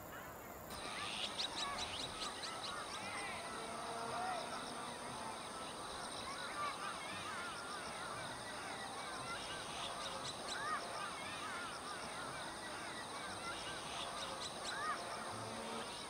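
Many birds calling at once, short overlapping chirps and chatter, over a steady high-pitched tone. The sound changes abruptly just under a second in, where the picture cuts.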